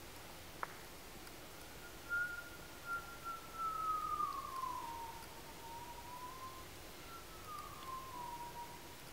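A thin, high whistled tone from a performer's mouth, drawn out and sliding slowly downward over a few seconds, then a second, shorter falling glide near the end. A single faint click comes just before the first glide.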